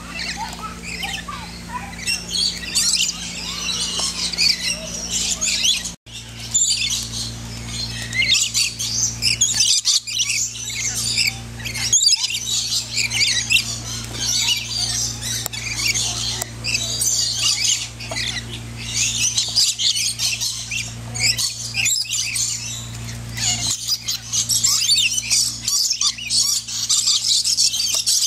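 A flock of lorikeets screeching and chattering without a break, many short shrill squawks and chirps overlapping. A steady low hum runs underneath.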